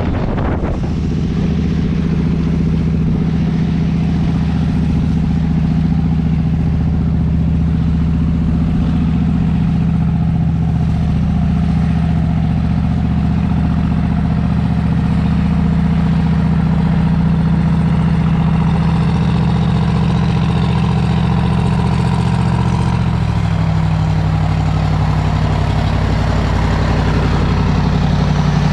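A river passenger boat's engine running steadily under way, a low, even drone with water rushing along the hull. About three-quarters of the way through, its note steps slightly lower.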